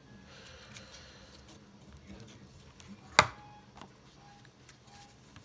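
Faint rustling and handling of paper, with small ticks and one sharp click about three seconds in.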